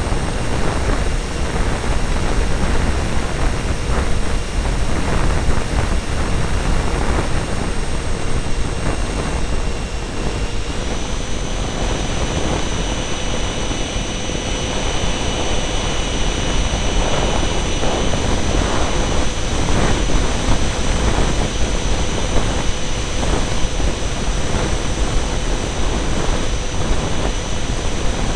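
Twin 70 mm electric ducted fans of a radio-controlled F-22 jet whining steadily in flight, heard from a camera on board, over a heavy rush of wind on the microphone. About ten seconds in the fan whine steps up a little in pitch as the fans speed up.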